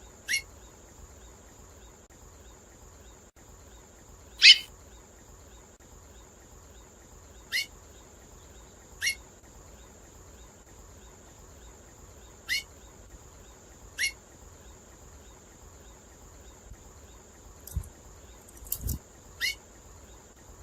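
A female finch in breeding condition ('in heat') giving short, sharp upward-sweeping call notes every few seconds, one much louder about four seconds in. A steady high thin whine runs underneath, and there are a couple of soft thumps near the end.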